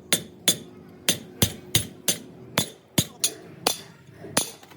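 A hammer striking metal in a quick, uneven series of blows, about two to three a second, each with a short metallic ring.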